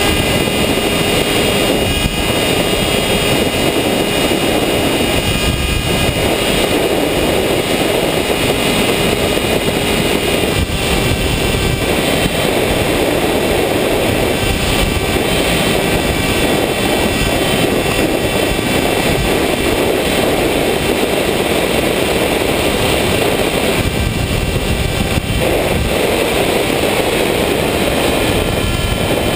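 An FPV RC airplane's motor and propeller heard from the onboard camera in flight: a steady high whine over loud rushing wind as the plane climbs.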